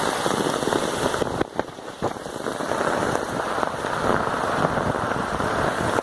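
Hail and heavy rain pelting down: a dense, continuous clatter of many small hailstone impacts over the roar of rain, dipping briefly about a second and a half in.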